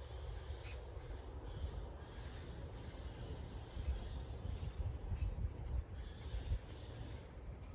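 Outdoor bird calls in a quiet valley: faint high chirps scattered through, with a few quick falling notes near the end, over a steady low rumble.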